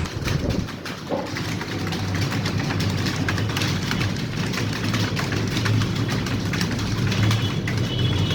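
Many computer keyboards clattering at once as a room of typists type, a dense, irregular patter of key clicks over a steady low hum.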